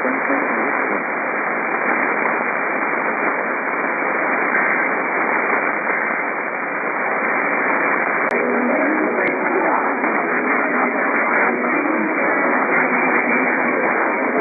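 Radio receiver hissing with heavy static on a weak signal, a faint voice barely showing through it. Two sharp clicks come a second apart about eight seconds in.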